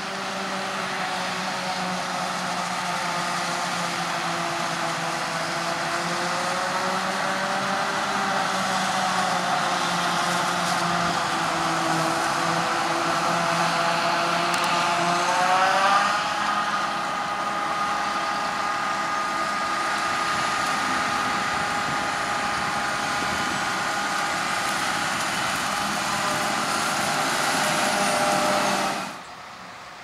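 Claas Jaguar 940 forage harvester chopping maize and blowing it into a trailer, with a New Holland T7 tractor running alongside: a steady machine hum with several engine tones that drift in pitch and step up about halfway through. The sound drops away abruptly about a second before the end.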